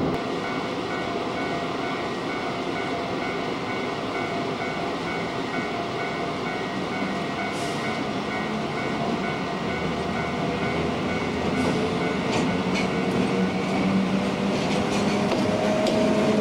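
Tobu ED5070-class electric locomotive rolling slowly toward and past, its motor hum slowly rising in pitch and its wheels clicking over rail joints in the second half, getting louder toward the end.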